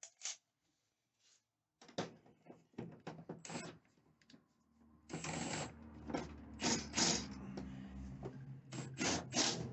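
Cordless drill run in several short bursts with sharp clicks between. From about halfway it runs more steadily, with repeated louder bursts over it.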